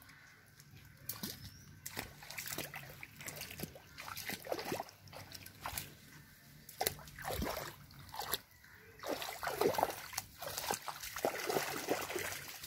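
Footsteps splashing and sloshing irregularly through shallow muddy water.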